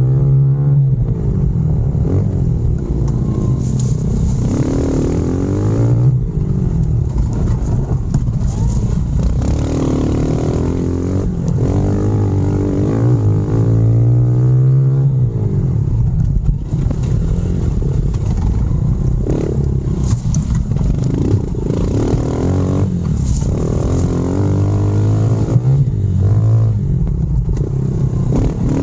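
Honda CRF110F pit bike's small single-cylinder four-stroke engine ridden hard on a dirt trail, its pitch climbing under throttle and dropping back again and again. Occasional sharp knocks and clatter come from the bike over the rough ground.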